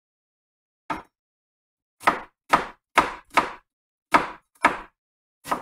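Kitchen knife chopping an onion on a wooden cutting board: about eight sharp knocks of the blade striking the board. One comes about a second in, then a quicker run of strokes, roughly two a second, from about two seconds in.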